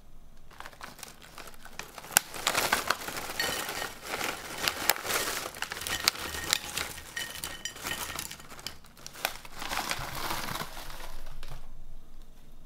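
Plastic snack packet crinkling and rustling as it is handled, a dense run of sharp crackles that starts about half a second in and stops about a second before the end.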